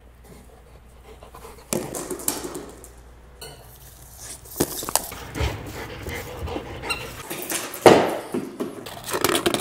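A golden retriever panting as it noses at a K9 Cruiser sliding dog toy, the toy's hard plastic shell knocking and scraping on the floor in several sudden clatters, the loudest near the end.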